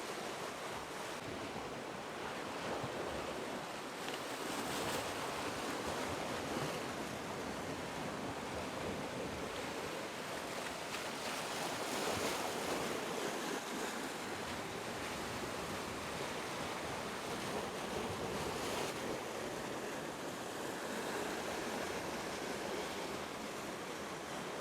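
Sea surf washing and breaking against a rocky shore: a steady rush that swells a little every few seconds.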